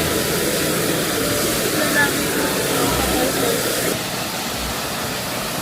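Indistinct voices talking over a steady rushing hiss, which cuts off suddenly about four seconds in.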